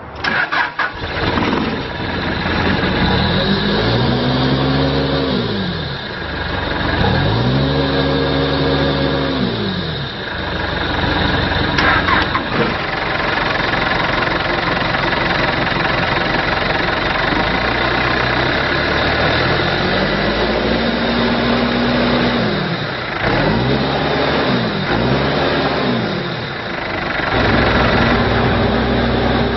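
Diesel engine of a Case 580M Series 2 backhoe loader running and being revved up and back down about five times, each rev climbing, holding briefly and dropping back to a steady idle. It is held at higher revs near the end.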